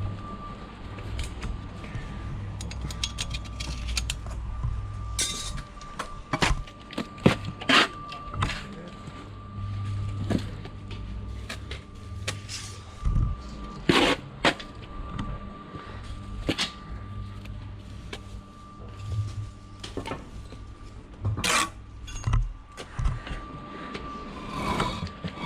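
Irregular knocks, clinks and scrapes of bricklaying work: trowel and concrete blocks being handled and set in mortar, a few louder knocks among them, over a steady faint high tone and a low rumble.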